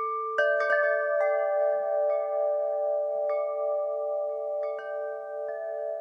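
Wind chimes ringing: a quick cluster of strikes in the first second, then single strikes every second or so, each note ringing on long enough to overlap the others.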